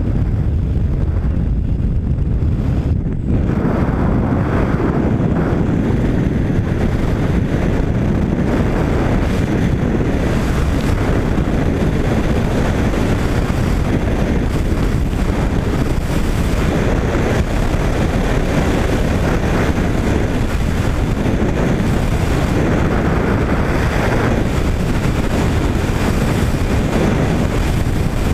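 Freefall wind rushing over the microphone in a steady, loud rush. For the first three seconds or so it is the jump aircraft's engine and slipstream at the open door; after a brief dip about three seconds in, as the jumpers leave the plane, it widens into a fuller rush.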